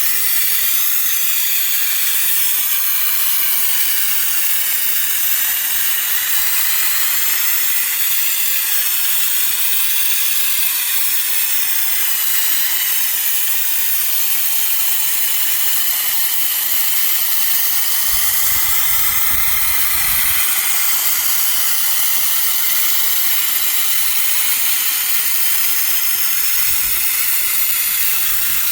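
Compressed-air spray gun hissing steadily as it sprays thick Lizard Skin sound-insulating coating, with the air pressure turned low.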